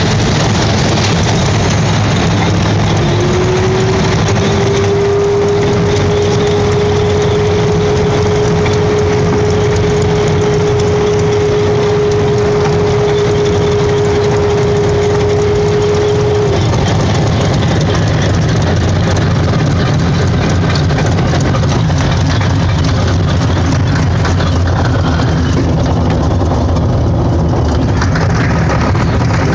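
P-51 Mustang's Packard Merlin V-12 running steadily in flight, heard as a loud drone from inside the cockpit with wind noise over the canopy. A steady whining tone comes in about three seconds in, rises briefly, holds, and cuts off suddenly about halfway through.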